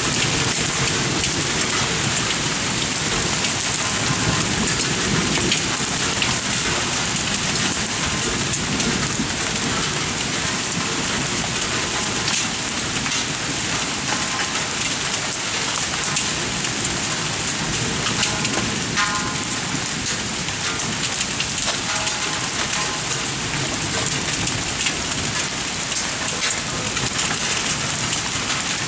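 Heavy rain mixed with pea- to marble-size hail pelting down in a severe thunderstorm: a dense, steady hiss with many sharp ticks of hailstones striking.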